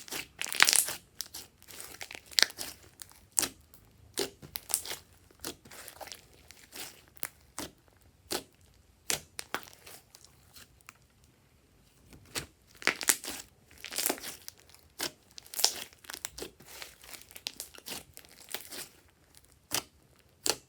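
Glossy slime being squeezed, stretched and poked by hand, giving irregular wet clicks and crackling pops in quick clusters, with a quieter pause about halfway through.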